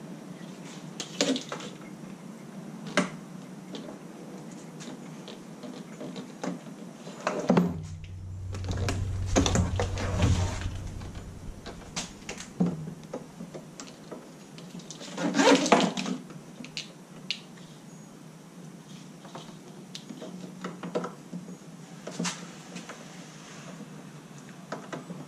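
Scattered knocks, clicks and light rattles of a plastic tow-dolly fender and its light wiring being handled on a wooden workbench. There is a low rumble for about three seconds near a third of the way in, and a louder clatter a little past halfway.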